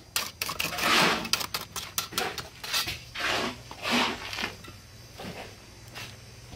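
Short scrapes and clicks of a mason's hand float and trowel working wet concrete on new stair steps, in bursts that thin out after about four seconds.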